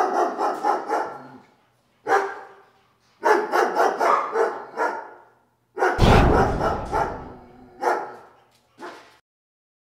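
Dog barking in several bursts of rapid barks, with a deep thump about six seconds in; it cuts off abruptly near the end.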